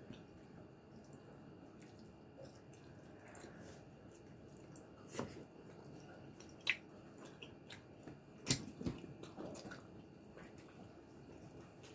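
Close-up eating sounds from a person chewing and sucking braised pork (lechon paksiw) off the bone: a few sharp, wet lip smacks and clicks spaced a second or more apart over soft chewing.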